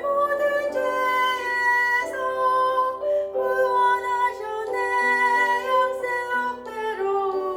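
Voices singing a Christmas praise medley in long held notes, with plucked-string accompaniment.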